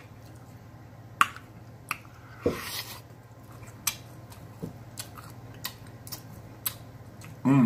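Close-up mouth sounds of eating smoked pork loin: wet chewing smacks and clicks about once a second, with a brief noisier rasp around two and a half seconds in, over a low steady hum.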